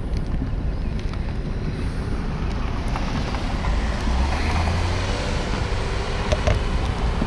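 Car running, a steady low rumble with noise over it, a little steadier and lower partway through.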